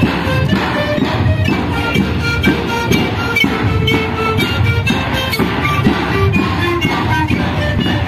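Siku panpipes and large double-headed bass drums playing together as a Suris dance troupe: short, breathy piped notes over a steady drum beat.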